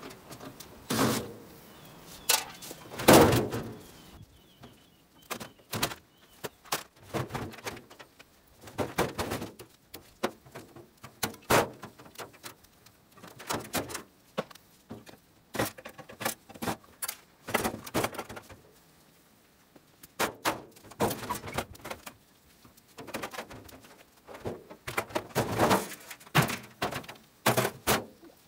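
Steel panels and parts of a gas dryer knocking, clanking and rattling as it is pulled apart by hand, with clicks of a hand tool, in irregular clusters. The loudest is a hard thunk about three seconds in.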